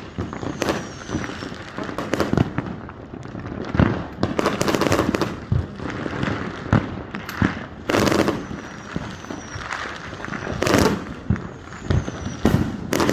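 Fireworks going off: repeated sharp bangs and crackling bursts every second or so, with a few faint falling whistles.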